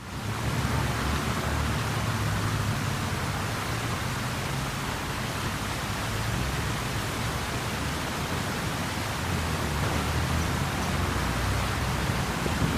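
Steady rushing street ambience with a low rumble underneath: passing traffic and splashing fountain jets at a busy roundabout, starting abruptly out of silence.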